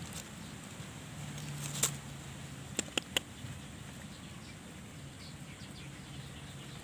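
Faint outdoor ambience with a low steady hum, broken by a single sharp click about two seconds in and three quick clicks about a second later.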